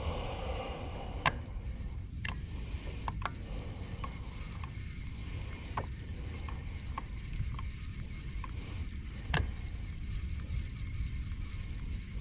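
Steady low rumble on a small fishing boat, with about a dozen irregular sharp clicks and taps from the rod and reel being handled during a lure retrieve.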